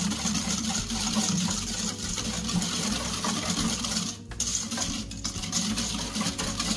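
Wire balloon whisk beating runny cake batter in a stainless steel bowl, the wires working fast against the metal. It runs continuously, with a short break about four seconds in.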